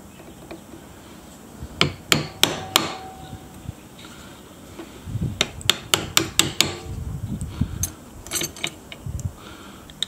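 Small hammer tapping a steel pin punch to drive the pins out of a Victorinox knife's side plate, the knife resting over a recess drilled in a wooden block. A group of four sharp taps comes about two seconds in, a quicker run of about six around the middle, and a few more near the end.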